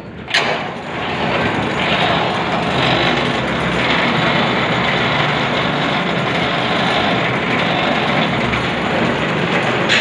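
A machine running steadily with an even mechanical hum and hiss, after a short sharp knock right at the start.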